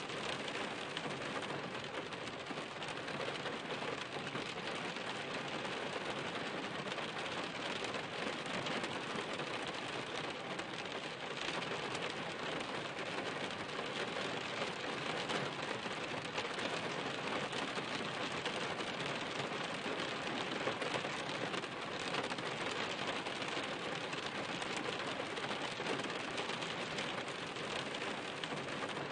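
Steady rain falling: an even hiss with faint ticks of separate drops striking a surface.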